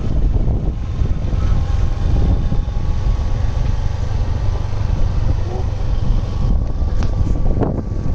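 A vehicle running along a dirt track, its engine noise mixed with a steady wind rumble on the microphone.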